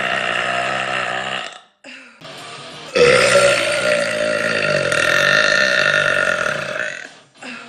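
A woman burping: a long, pitched burp that dies away about one and a half seconds in. After a short pause comes a second, longer burp lasting about four seconds.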